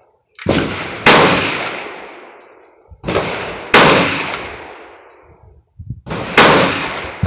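Three loud 9 mm Glock 17 pistol shots about two and a half seconds apart, each ringing out with a long echoing decay. A fainter shot comes about half a second before each one.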